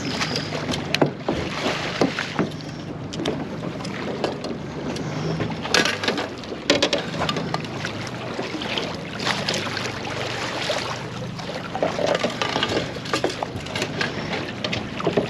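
Boat motor running at a steady low idle, with scattered knocks and clatter from gear and the hull.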